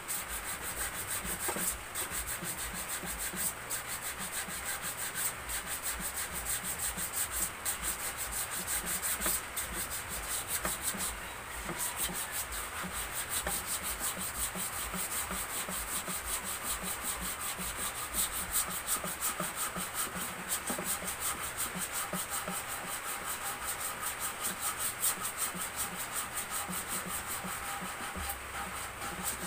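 Sandpaper rubbed by hand on the curved wooden cradle of a homemade stand, in quick, steady back-and-forth strokes.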